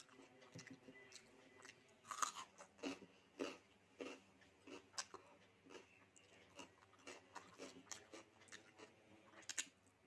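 A person chewing food close to the microphone, with irregular crisp crunches and wet mouth clicks, the loudest a little after two seconds in and again near the end.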